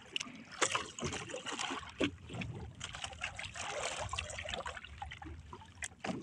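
Sea water trickling and lapping around a small wooden outrigger boat, with scattered small knocks and splashes as a wet handline is hauled in hand over hand.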